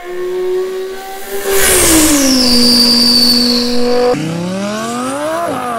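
A man imitating a supercar cold start with his voice, blowing through a paper towel roll. A steady engine-like hum drops in pitch, with a high whistle gliding down alongside it. About four seconds in it breaks off into a low note that climbs like a rev, dips and climbs again.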